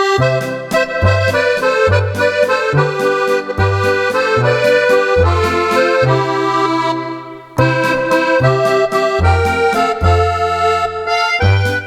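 Roland FR-4X digital accordion played with an accordion voice: a melody over rhythmic bass notes and chords. The playing breaks off briefly about seven seconds in, then starts again.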